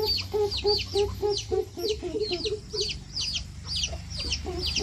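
Greater coucal's deep 'coop-coop' hooting call, imitated by mouth through cupped hands: a fast run of about five hoots a second that breaks off midway and resumes near the end. Another bird's high chirps repeat throughout.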